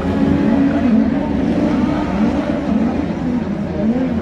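DTM race car engines, the 2019 turbocharged two-litre four-cylinders, running with the revs rising and falling over and over.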